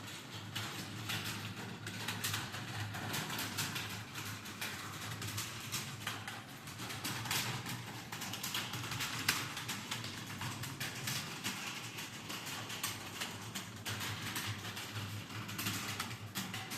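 Fast, continuous typing on a keyboard, the keys clicking in a dense, uneven stream. A low steady hum runs underneath.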